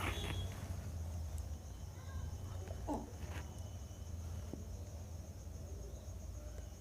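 Quiet background: a steady low hum under a steady high-pitched whine, with a few faint rustles and small clicks, and one brief sliding sound about three seconds in.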